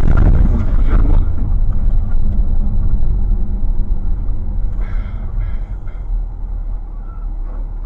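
Low road and engine rumble of a car driving on a highway, picked up by a dashcam microphone inside the car, slowly fading.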